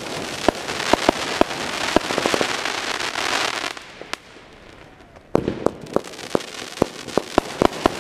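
A fan-shaped firework cake firing: a run of sharp shots and pops over the hiss of rising comets. About halfway through it goes quieter for a second and a half, then a loud shot starts the next volley.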